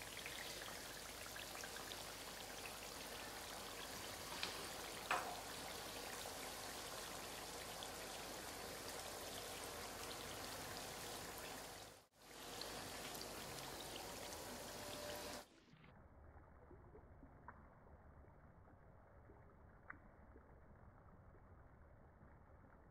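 Chicken cooking in oil and yogurt in a karahi, a steady sizzling hiss with a couple of sharp clicks about five seconds in. It breaks off briefly about twelve seconds in, and after about fifteen seconds a quieter, duller hiss takes over.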